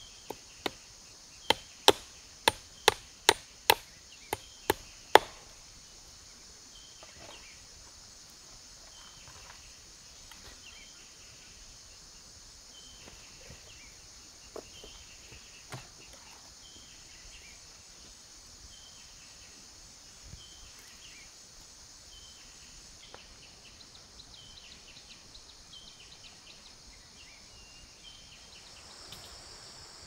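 About a dozen quick, sharp hammer blows driving nails into a wooden fence post to fix barbed wire, stopping about five seconds in. After that a steady high drone of insects, with a short chirp repeating about once a second.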